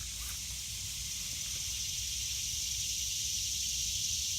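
Steady, high-pitched hiss of a summer insect chorus, growing slightly louder toward the end, with a low rumble underneath.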